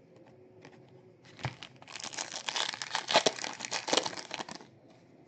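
Plastic-foil wrapper of a trading-card pack crinkling as it is handled, a dense crackle that starts just over a second in and stops about half a second before the end.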